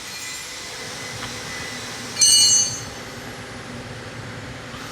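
A brief, loud, high-pitched metallic ring about two seconds in, like a metal tool or engine part clinking, over a steady background hum.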